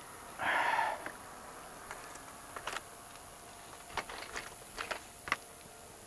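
A short breath by the rider close to the microphone about half a second in, then scattered light clicks and rattles from a bicycle being ridden.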